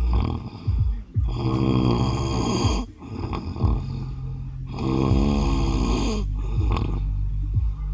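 A man snoring in his sleep: two long snores about three and a half seconds apart, with quieter breathing between them.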